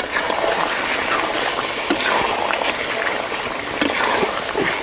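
Chicken curry, just thinned with water for gravy, sizzling and sloshing in a kadai over a wood-fired clay stove as a spatula stirs it.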